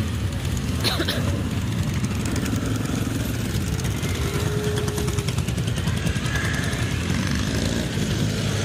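A procession of motorcycles riding slowly past one after another: a steady blend of engine rumble, with single bikes swelling and fading as they pass.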